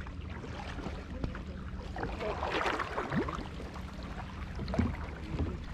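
Kayak paddling on calm water: paddle blades dipping and splashing, with water dripping and small knocks from the boats.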